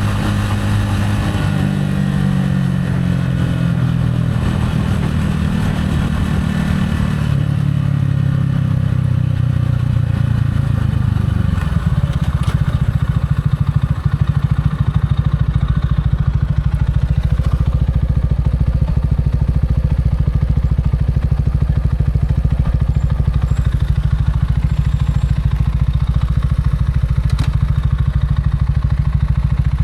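Gilera AC4 motorcycle engine slowing down, its revs falling over the first ten seconds or so, then idling steadily for the rest.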